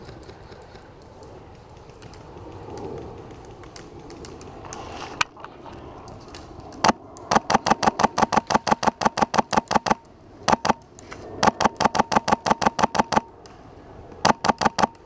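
Airsoft rifle firing on full auto in rapid bursts of sharp clicks, about eight to ten shots a second: a long burst about seven seconds in, a short pair, a second long burst, and a few last shots near the end. Before that there is only low rustling.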